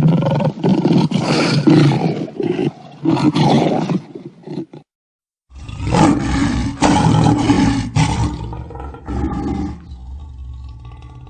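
Lion roaring: a series of deep, loud roars, broken off by a brief silent gap about five seconds in, then a second bout of roars that fades near the end.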